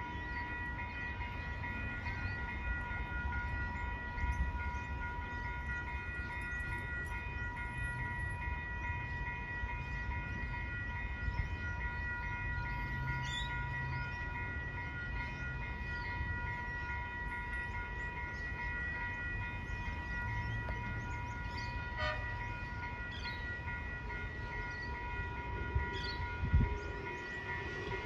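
Level crossing warning alarm ringing steadily over a low rumble as an electric tram approaches; the tram's running noise grows near the end, with a couple of knocks.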